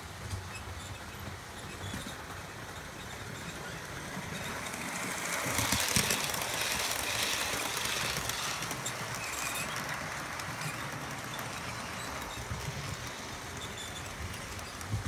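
Model railway train running past on the layout's track, the whirr and clatter of its wheels and motor swelling as it comes close, loudest about six seconds in, then fading as it runs on.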